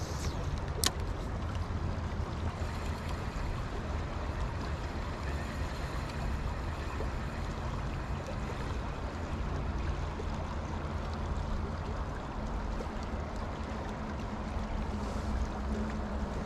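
Skykomish River flowing, a steady rush of water with a low hum underneath and a single sharp click about a second in.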